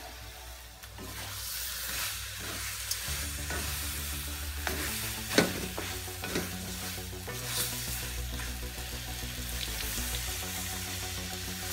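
Fish pieces and tomato sauce sizzling in a hot metal wok while a wooden spatula stirs and scrapes, with scattered knocks of the spatula against the pan, the sharpest about five seconds in.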